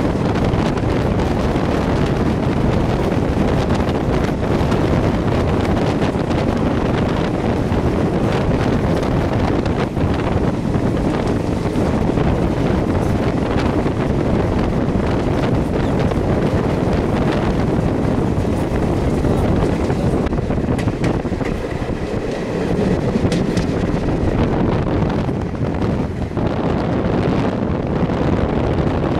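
Wind buffeting the microphone from a moving passenger train, over the steady running rumble of the coaches on the track, with scattered short clicks.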